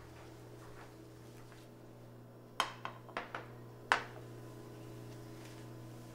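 Crockery set down on a glass tabletop: a cup and a plate clink against the glass in a quick run of about five sharp clinks past the middle, the last and loudest about four seconds in, over a steady low hum.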